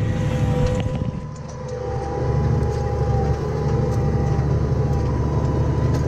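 Tractor diesel engine running steadily under load while pulling a reversible plough, with a steady whine over the low rumble. The sound dips briefly about a second in and builds back up about two seconds in, staying steady after that.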